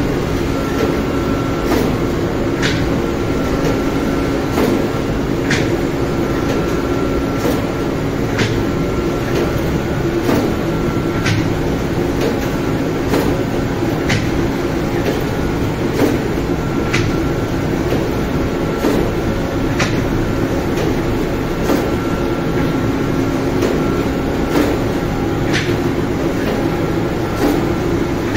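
Lavash bakery machinery, the dough sheeter and conveyor oven, running with a steady drone and hum. Short sharp clicks come in pairs about a second apart and repeat every three seconds or so, in time with the machine's cycle.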